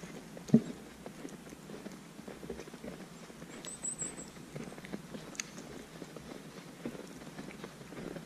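Footsteps crunching in fresh snow at a steady walking pace, each step a soft low thump, the strongest about half a second in. A brief high chirp comes near the middle.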